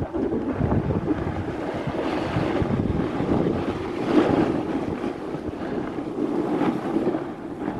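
Wind buffeting a helmet-mounted camera microphone during a snowboard run, mixed with the hiss of the board sliding over snow. The noise swells a few times through the run.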